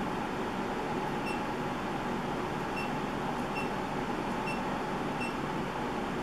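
Steady, even rushing noise like a fan or ventilation running, with faint short high beeps every second or so through the middle.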